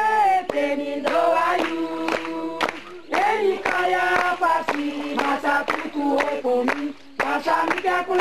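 A group of voices singing together unaccompanied, in phrases a few seconds long with short breaks between them.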